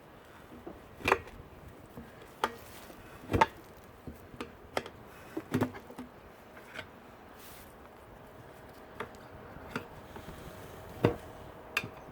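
Irregular sharp knocks and thuds as a tire with its bead cut is worked up and over an old 15-inch wheel rim by hand, rubber and rim knocking against each other and the stump beneath; about seven knocks, the loudest near the end.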